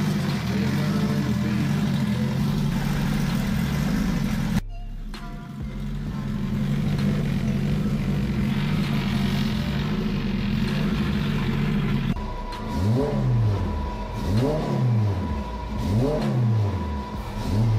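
Freshly rebuilt Honda Civic race engine running after its first start: it holds a steady idle, then from about twelve seconds in it is blipped up and back down again and again, roughly every second and a half. A thin steady whine sits over the revs from the same point.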